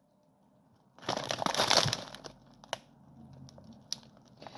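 Plastic microwave steam bag crinkling as it is handled: a dense burst of crinkling starting about a second in, then a few lighter crackles and clicks.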